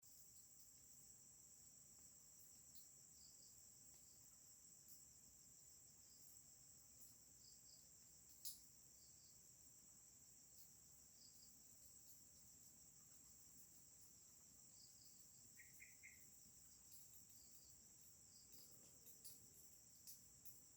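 Faint, steady high-pitched trilling of crickets in chorus, with a few scattered faint clicks, the sharpest about eight seconds in.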